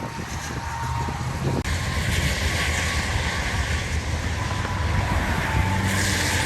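Hurricane wind and rain, a steady noisy rush over a low rumble, stepping up louder about a second and a half in.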